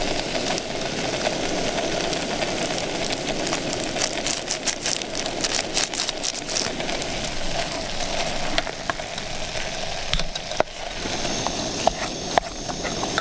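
Gas camp stove burner running with a steady hiss under a pot of crumbled tofu, with crackling from the tofu in the pot for a couple of seconds midway. Near the end come a few sharp clicks of a spatula against the pot as the tofu is stirred.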